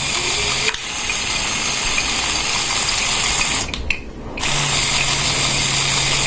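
Lego Technic electric motor whirring through plastic gears as it turns the crane's turntable. It stops briefly about two thirds of the way through, then runs on.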